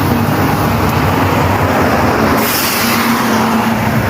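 Steady street noise with a low vehicle engine hum, and a sudden hiss about two and a half seconds in that fades away.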